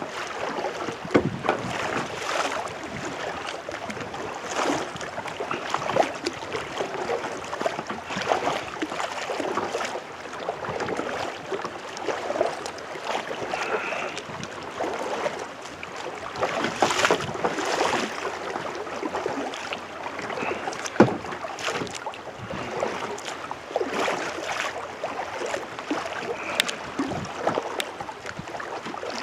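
Kayak paddle strokes in the water: a steady run of dips and splashes every second or two, with water trickling and dripping off the blades between strokes.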